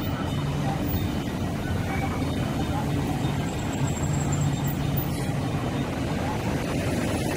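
Steady road-traffic noise at a busy junction: cars, scooters and concrete-mixer trucks running, with a low engine hum throughout, as a supercapacitor tram rolls past below.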